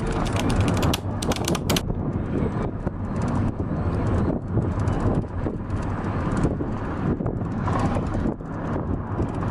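Car driving along a road, with steady engine and road noise and wind buffeting the microphone.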